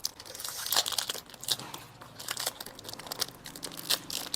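Plastic candy wrapper crinkling and rustling as it is handled and opened, in irregular bursts of crackle.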